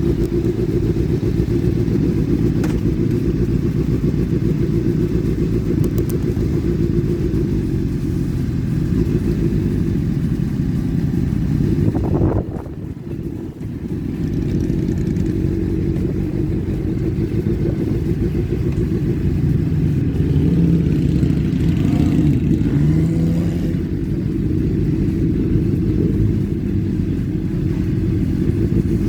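Motorcycles of a mass convoy, their engines giving a steady low rumble, with a brief dip about twelve seconds in.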